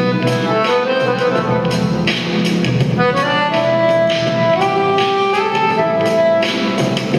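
International piano accordion playing a tune: long held melody notes that move from one pitch to the next over sustained chords.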